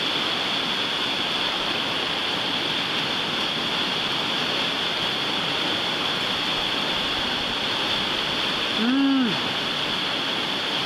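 Steady roar of rushing whitewater in a river rapid. Near the end, one short shout from a person's voice rises and falls in pitch over it.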